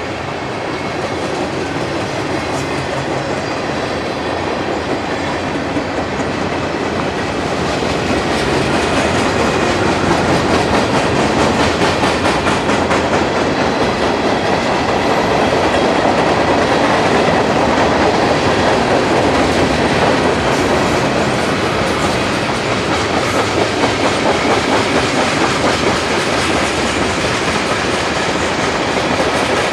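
Freight train cars rolling past, steel wheels clacking over the rail joints; the sound grows louder about eight seconds in and then holds steady.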